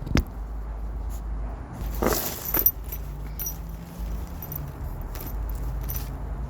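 A sharp click just after the start, then a brief metallic jangle about two seconds in, with a few fainter clicks over a low steady hum.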